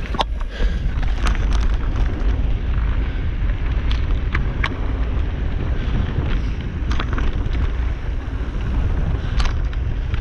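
Heavy wind rumble on the microphone from a mountain bike ride along a dirt trail, with scattered sharp clicks and rattles from the bike.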